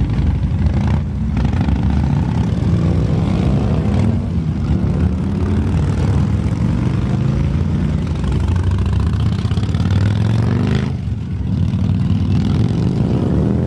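Superbike engines running loud, with throttle revs that rise in pitch, a brief drop after about a second, another drop near eleven seconds, and one more rising rev near the end.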